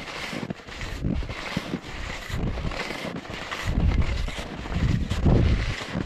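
Wind buffeting the microphone, with repeated low swishes and thuds of hunting skis striding through snow, under a second apart and heaviest about two thirds of the way through.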